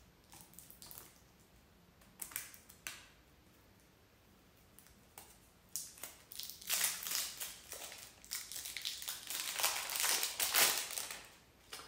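Plastic shrink-wrap being picked at and then torn and crinkled off a deck of game cards: a few faint ticks in the first few seconds, then dense crackling from about six seconds in until shortly before the end.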